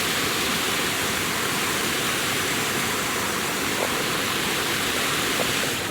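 Waterfall: a steady rush of falling water, loud and unbroken, that cuts off suddenly at the end.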